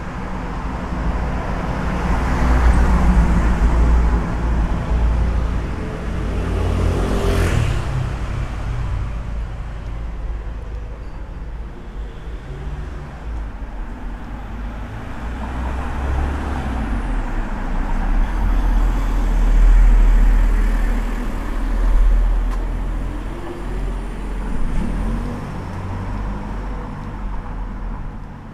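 Cars driving past on a narrow town street, engine rumble and tyre noise swelling and fading as several vehicles pass close by one after another, the loudest about two-thirds of the way in.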